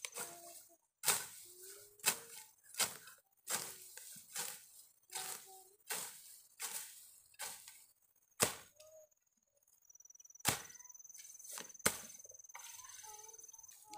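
A hand tool chopping into the ground or vegetation in a steady rhythm, roughly one stroke every three-quarters of a second, stopping about eight and a half seconds in, then striking twice more. An insect's steady high buzz runs underneath.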